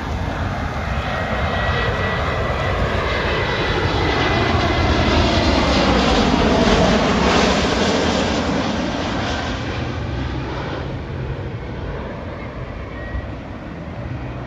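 Jet airliner (Wizz Air Airbus A321) passing low overhead on landing approach. The engine rumble builds to a peak about halfway through, with a whine falling in pitch as it goes by, then fades away.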